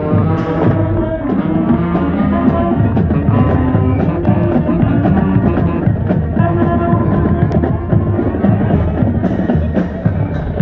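Band music playing loudly: drum hits over sustained instrument notes.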